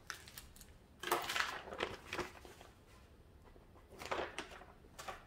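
Light rustling and a few soft clicks from hands handling items, in two short bouts: one about a second in and one about four seconds in.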